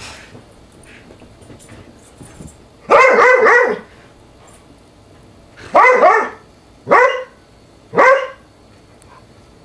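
Dog play-barking while wrestling: a quick run of several barks about three seconds in, then three single barks about a second apart.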